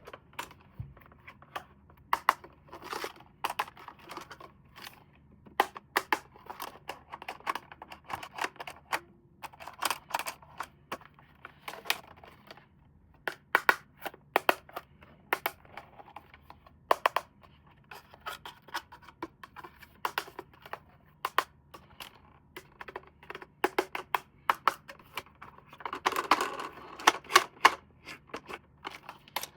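Hands handling plastic toy parts and packaging: irregular sharp clicks and taps mixed with crinkling rustles, busiest near the end.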